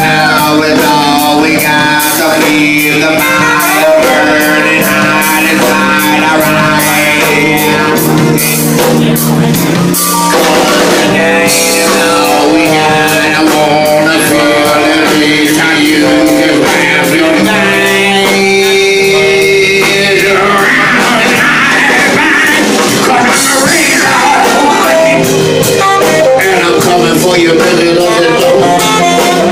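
Live band music with guitar and drum kit, playing a passage between the sung verses of a bluesy rock song.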